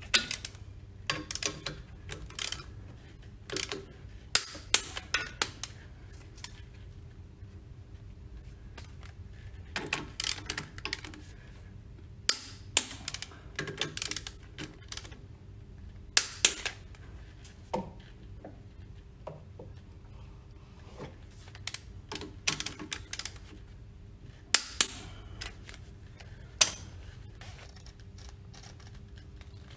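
Ratcheting torque wrench clicking as the split-coupling bolts are tightened, in several short bursts of sharp clicks with pauses in between.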